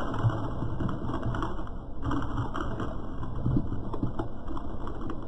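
Car tyre rolling slowly over asphalt, crushing small soft egg-shaped toys full of yellow goo, with steady crackling and scattered small pops and clicks.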